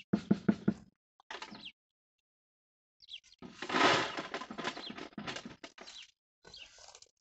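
Long-handled garden tool working soil in a flowerbed: a quick run of knocks, then a louder scraping, rustling stretch about three and a half seconds in. Short bird chirps come between.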